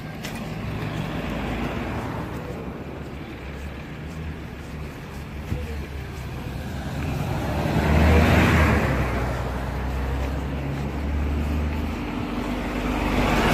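Road traffic passing close by: motor vehicles, among them a bus and a truck, drive past with their engines humming low. The noise swells loudest about eight seconds in and again near the end as vehicles pass.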